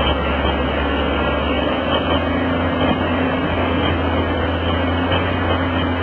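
Loud steady rush of a whitewater river, with the low, even drone of a Caterpillar crawler dozer's diesel engine running underneath as the machine works through the current.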